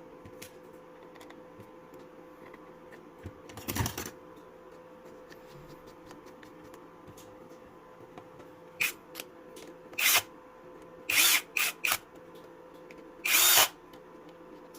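Cordless electric screwdriver running in short bursts, about seven times, driving in the screws that close a drill battery pack's plastic case.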